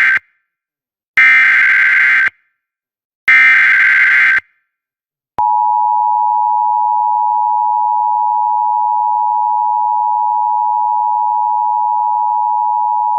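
Emergency Alert System SAME header: the end of one burst and then two more short bursts of screeching digital data tones, each about a second long, followed about a second later by the EAS two-tone attention signal (853 and 960 Hz together), a steady harsh dual tone held for about eight seconds. It marks the start of a National Weather Service flash flood warning.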